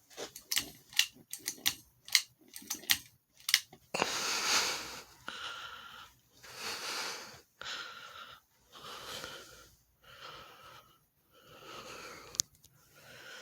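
Hampton Bay Littleton ceiling fan running in reverse: a quick series of clicks in the first few seconds, then a breathy whoosh that comes and goes in short patches.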